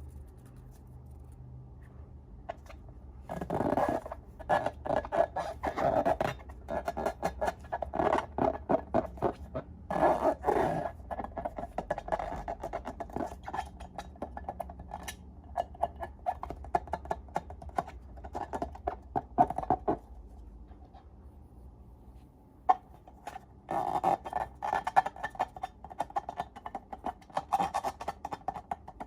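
Slime being squished and stretched by hand: dense, irregular sticky crackling and squelching in two long spells with a short lull between them.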